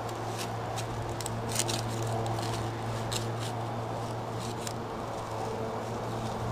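Garden fork tines pushed into gravelly soil, giving irregular crunching and scraping clicks as the ground is loosened, over a steady low hum.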